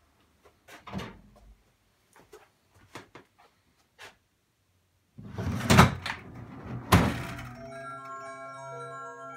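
Small wooden clicks and taps, then a secretary desk's hidden central interior mechanism shifting for a couple of seconds, a wooden rumble with two loud thunks, as the columned compartment gives way to a bank of small drawers. Chiming mallet-percussion music begins near the end.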